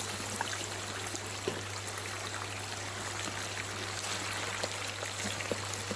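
Chopped chicken pieces frying in hot oil: a steady sizzle with many small scattered crackles, the brief par-fry (passing through oil) before stir-frying.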